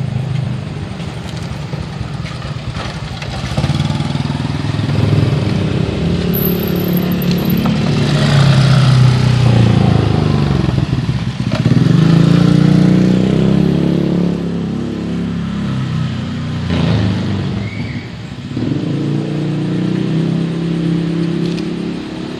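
Motorcycles and cars driving past one after another, their engine notes rising and falling as each goes by. The loudest passes come around the middle, one after the other.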